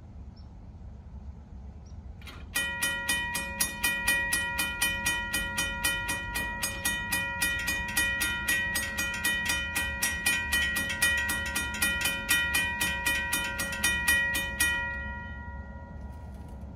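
Railroad crossing warning bell, starting with a click about two seconds in and then striking rapidly and evenly, a ringing clang several times a second. It stops near the end with a short ring-out. The crossing is activated for an approaching train, its gates lowering.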